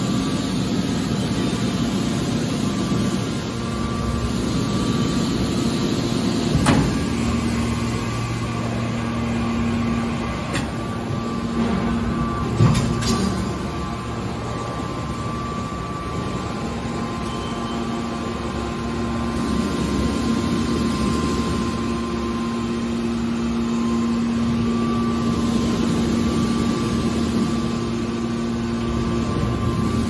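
Hydraulic scrap metal baler running, a steady machine hum with a higher whine, with two metallic clunks about 7 and 13 seconds in.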